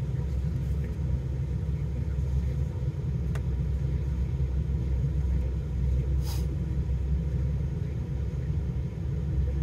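Steady low rumble of a vehicle idling, heard from inside its cabin. There is a faint click about three and a half seconds in and a brief higher sound just after six seconds.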